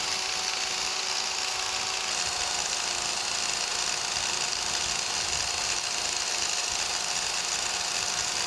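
Biax electric power scraper running with a steady buzz, its reciprocating blade taking short, fine strokes off the blued cast-iron ways of a metal planer's cross slide. It is a finishing pass that picks off individual high spots.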